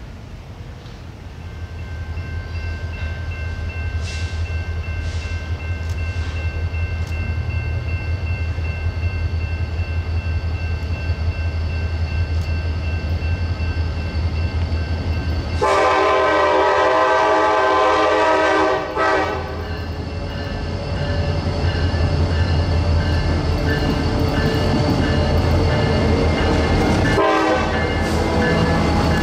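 Diesel freight locomotive approaching, its engine rumble growing louder, then sounding its horn in a long blast a little past halfway through and again near the end.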